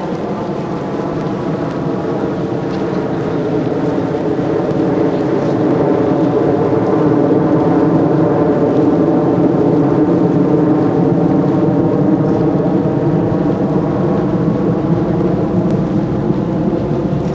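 An engine running steadily with a hum of many even tones, growing louder to a peak about halfway through and then easing off slightly, as if passing by.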